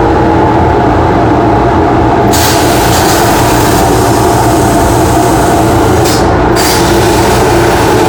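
Dust collector and fume extractor running with a steady hum; about two seconds in, the plasma cutter's arc fires with a loud hiss, drops out briefly near six seconds and starts again.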